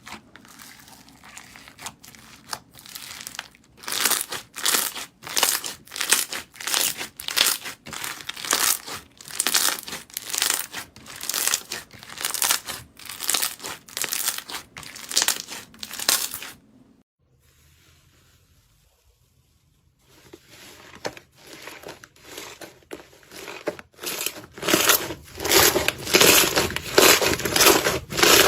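Slime being squeezed and kneaded by hand, with repeated crackling squishes about twice a second. The sound stops for a few seconds, then starts again and grows louder and denser near the end.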